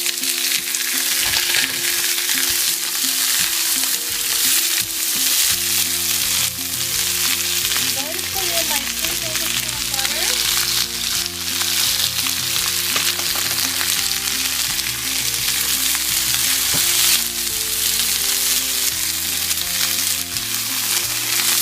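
Fresh green and yellow string beans sizzling in butter and browned garlic in a hot pan on high heat: a steady, loud frying hiss.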